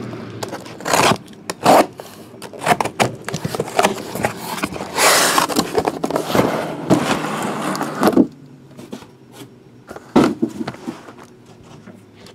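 Sealed cardboard case being opened by hand and the shrink-wrapped hobby boxes inside slid out and stacked: cardboard scraping, rustling and knocks, with a longer stretch of scraping in the middle.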